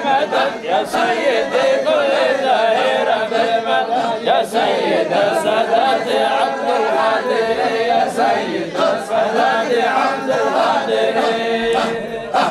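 A group of men chanting together unaccompanied in a Sufi hadrah, many voices overlapping in a continuous dhikr chant.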